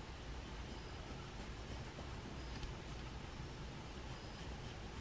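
Faint scratching of a pencil on paper as fence bars are drawn in and shaded with short strokes.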